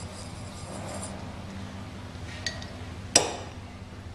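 Metal parts and tools being handled at a steel workbench: a light tick, then about three seconds in a single sharp metallic clink with a brief ring.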